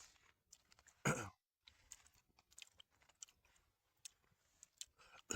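A man's short throat-clear about a second in, after a soft breath, followed by scattered faint clicks.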